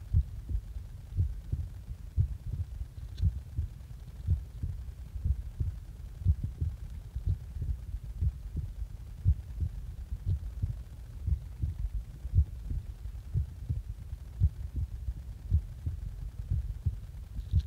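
A person's heart beating steadily just after waking, at about one beat a second, each beat a low thump.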